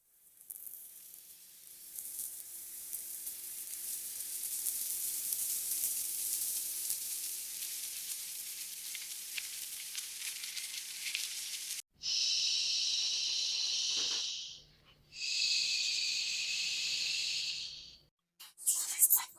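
AI-generated sound effects played back: a high hissing noise swells in over the first few seconds, runs about ten seconds and cuts off abruptly. Two shorter bursts of narrower, higher hiss follow, each about two and a half seconds long, with a brief gap between them.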